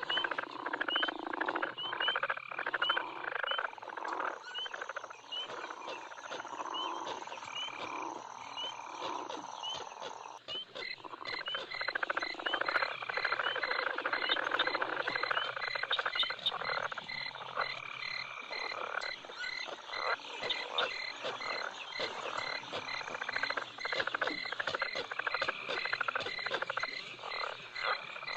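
Frogs croaking in a recorded night swamp soundscape, with chirping insects over them; about ten seconds in, the chirping changes to an even, rapid pulsing.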